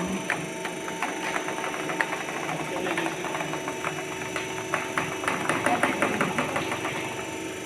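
Aluminium-profile arch-bending machine running: a steady mechanical hum with irregular clicks and rattles, busiest in the second half.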